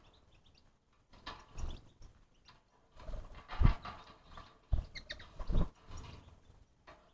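An animal moving about: irregular soft thuds and scuffs, a handful of them spaced unevenly, the strongest about three and a half seconds in.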